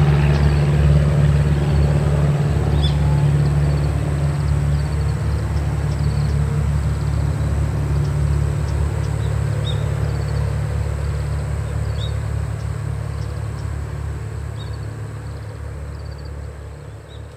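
Piston engine and propeller of a light single-engine aircraft droning steadily, fading gradually as it moves away. Faint bird chirps sound over it.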